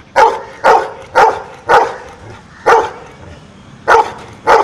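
Golden retriever barking out a count in answer to an arithmetic sum: seven short barks, the first four about half a second apart, then one more after a pause, and two close together near the end.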